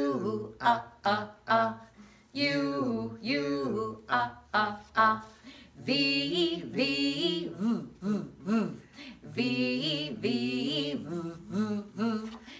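A woman and a man singing a phonics letter-sound chant together, moving from the letter U to the letter V, in short sung phrases with brief gaps between them.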